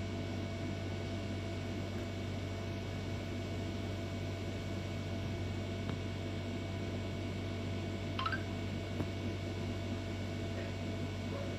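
Steady low electrical hum of room tone, with one brief faint rising chirp about eight seconds in.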